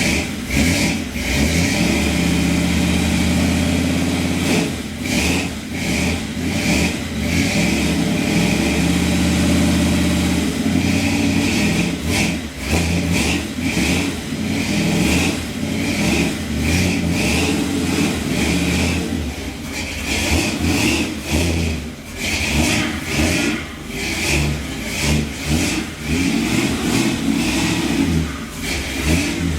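1966 Chevrolet pickup's engine running shortly after a cold start, its revs rising and falling unevenly instead of settling to a steady idle. It is typical of the truck when cold, which the owner puts down to the carburetor needing adjustment.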